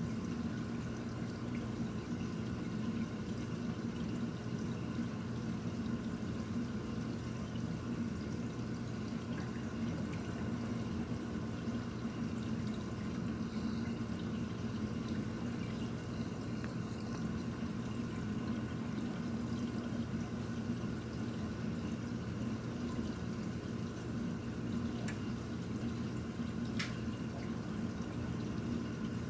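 Reef aquarium's running water circulation: a steady trickle of water over a constant low pump hum, with a couple of faint ticks near the end.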